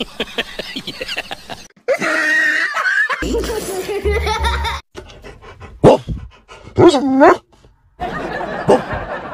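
A series of short clips: a child laughing hard, then pitched vocal glides, then a man's voice alongside a Rottweiler's vocalising.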